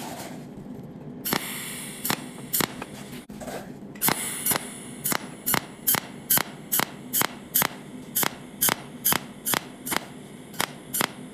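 A cold welding machine firing pulse after pulse of its tungsten arc to lay filler wire as a row of spot welds. Each pulse is a sharp tick. They come irregularly at first, then settle about four seconds in to an even rhythm of two to three a second, over a faint steady hiss.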